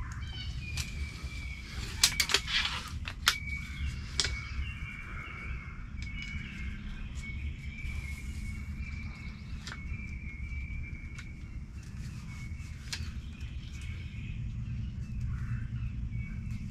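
Mini Striker RD crossbow being cocked and loaded: a handful of sharp mechanical clicks and clacks, bunched about two seconds in and trailing off by about four seconds, with a few fainter ticks later. A steady high-pitched hum and low outdoor rumble run underneath.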